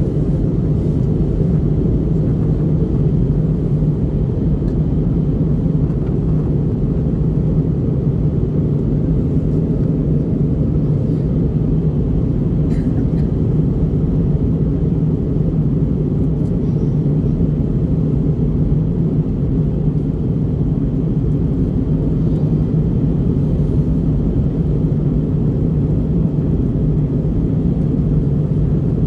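Steady in-flight cabin noise of an Airbus A321neo with CFM LEAP-1A turbofans: a constant low rumble of engine and airflow noise with a steady hum, unchanging throughout.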